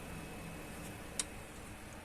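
Steady fan noise of a gaming PC under heavy load, the Asus ROG Strix RTX 3070's fans at about 1600 rpm among the case fans, with a faint low hum and a single sharp click about a second in. The graphics card gives no whine that stands out above the fans.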